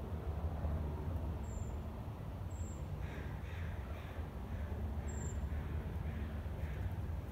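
A bird's harsh, caw-like calls repeated about twice a second for several seconds, starting midway. A few brief high chirps come before them, over a steady low rumble.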